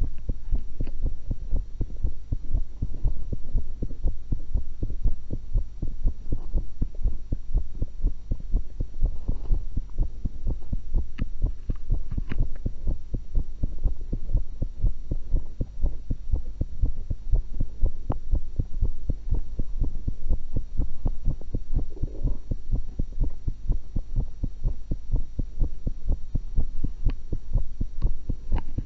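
A person's heartbeat heard through a stethoscope: a steady train of soft beats over a constant low hum.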